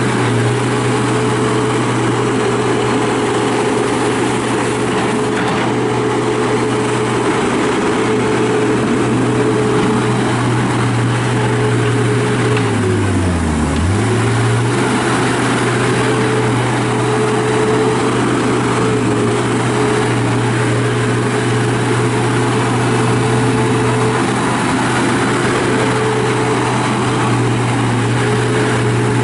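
John Deere CT332 skid steer's diesel engine running at a steady speed. About halfway through, the engine speed is pulled down sharply and recovers within about a second.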